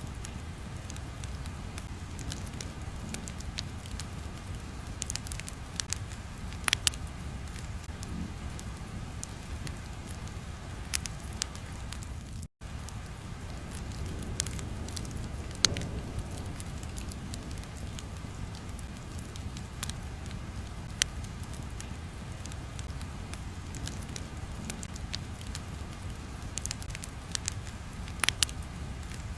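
Crackling fire ambience: a steady low rumble with scattered sharp pops and crackles, and a brief dropout about twelve seconds in.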